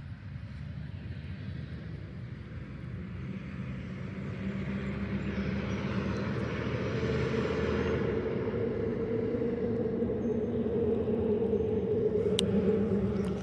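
Golf cart driving over rough ground: a steady motor hum and rumble that grows louder over the first half of the stretch and then holds.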